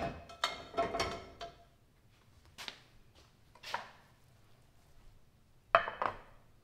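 Kitchen cookware and utensils clattering: a series of knocks and short ringing clinks, a cluster in the first second or so, single ones after, and a loud one near the end.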